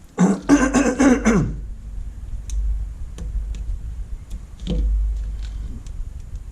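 A man clearing his throat, a loud sound about a second long near the start, followed by faint clicks and low bumps from handling the screen parts.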